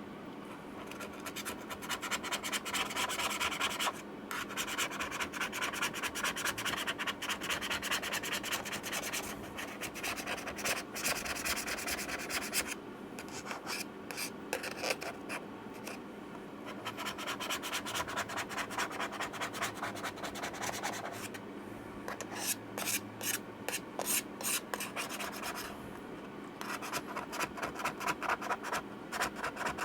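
Old battery adhesive being scraped off the inside of a MacBook Pro's case, in quick back-and-forth scratching strokes. The strokes come in runs of several seconds with short pauses between them.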